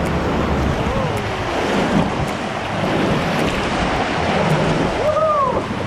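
Steady rushing noise of wind and water, with faint rising-and-falling calls, like distant voices, about a second in and again near the end.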